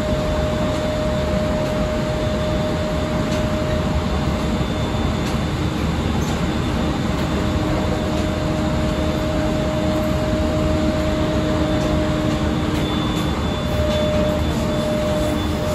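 JR 701 series electric train running at speed, heard from inside the car: a steady rumble of wheels on rail with a steady hum held on one pitch.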